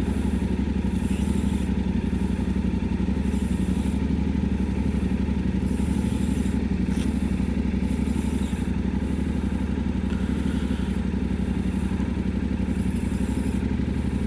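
Yamaha Ténéré 700's parallel-twin engine idling steadily.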